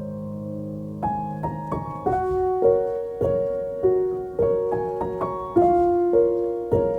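Soft background piano music: a held chord fades out, then a gentle melody of single notes played about two a second.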